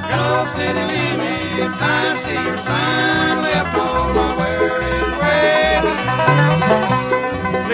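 Bluegrass band playing an instrumental passage: five-string banjo picking over guitar, with a string bass walking underneath and a fiddle sliding between notes.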